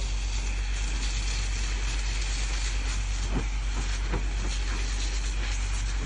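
Steady low engine drone of a fire pump feeding the hose, with the even hiss of the water jet spraying onto smouldering brush.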